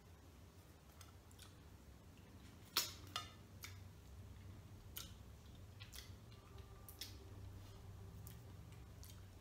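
Faint chewing and mouth clicks from someone eating a sugar donut. There are scattered sharp clicks, the loudest about three seconds in, over a low steady hum.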